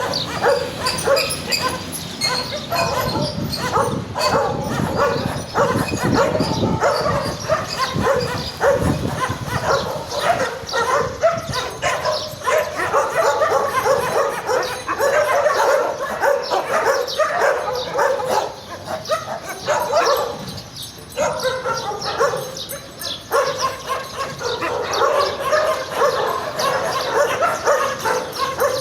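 A pack of street dogs barking and yipping continuously, many voices overlapping, with a short lull about two-thirds of the way through.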